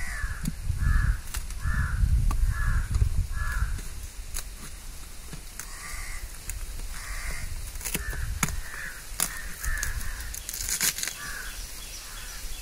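Crows cawing repeatedly, a long run of short caws about two a second with a brief pause near the middle. A low rumble runs under the first few seconds.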